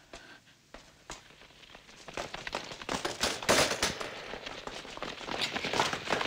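A few isolated sharp clicks, then from about two seconds in a dense, rapid clatter of sharp cracks that grows louder.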